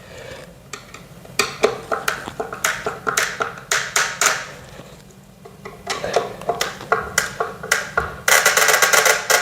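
Hand screwdriver tightening assembly screws: irregular short clicks and taps as the driver and hardware work, with a denser rasping stretch near the end.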